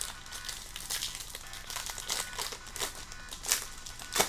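Foil wrapper of a Topps baseball card pack crinkling as hands grip it and open it, a run of crackles with a couple of louder ones near the end.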